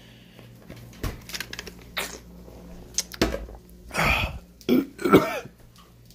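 A man making a handful of short non-speech throat noises, coughing and clearing his throat, the loudest about five seconds in, over a steady low hum.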